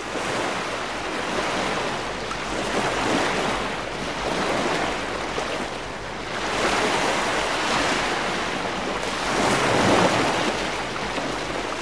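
Ocean surf: waves breaking and washing in, swelling and ebbing about every three seconds.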